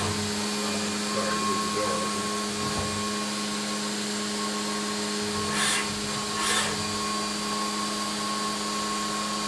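Haas DM1 vertical machining center milling aluminium: the spindle and cutter run with a steady hum and a constant higher whine over a noisy haze, and two short bursts of noise come about six seconds in.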